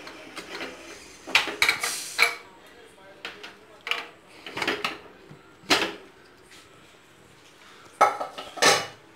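Aluminium pressure cooker lid being unlocked and lifted off the pot: a series of separate metallic clinks and clatters of the lid and its handles against the rim, with quiet gaps between them.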